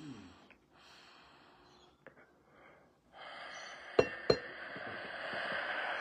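A person faintly drawing in on a smoking device, then from about halfway a long, steady breathy exhale of smoke. Two sharp clicks come close together early in the exhale.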